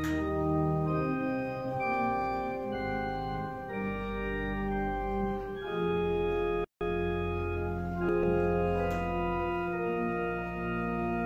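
Organ prelude music: slow, sustained chords that move from one to the next every second or so. The sound cuts out for an instant about two-thirds of the way through.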